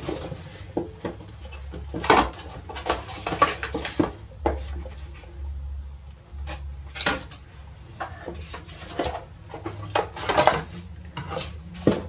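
Sticks of soft pastel clicking and rattling against each other and their tray as they are picked through in search of a white, in a loose run of short clicks and scrapes.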